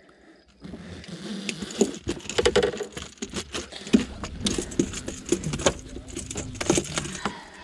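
A just-landed bass thrashing in the landing net, the crankbait's treble hooks jangling and clattering with many quick knocks; it starts about half a second in.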